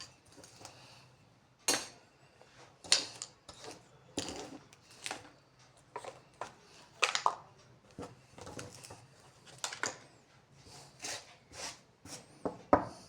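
Irregular clatter of small hard household objects being handled and set down: scattered sharp knocks and clicks, a dozen or so, with short gaps between them.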